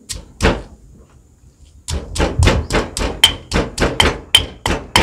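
Stone mortar and pestle pounding green curry paste ingredients. Two strikes at the start, then after a short pause a steady pounding of about four strikes a second.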